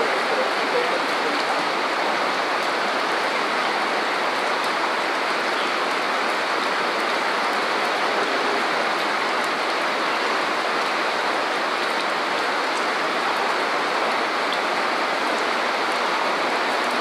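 Heavy rain pouring steadily onto a street, an even hiss.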